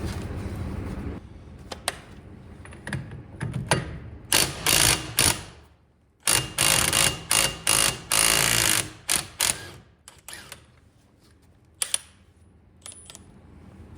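Impact wrench hammering in repeated short bursts on a front suspension bolt, with a longer burst a little past the middle.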